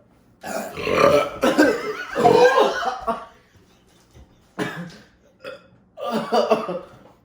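A person burping long and loud, one burp lasting over two seconds, from the gas of a gulped-down carbonated soda (Pepsi). A few shorter voice sounds follow near the end.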